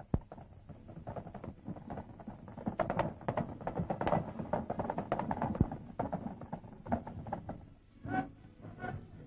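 Military band music on an old film soundtrack, with irregular clattering knocks like horses' hooves on paving stones. Two short notes sound near the end.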